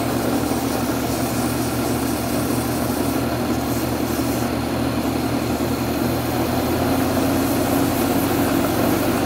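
Small wood lathe's electric motor running steadily with a pen blank spinning, while 400-grit sandpaper rubs on the blank to flatten a built-up CA glue finish.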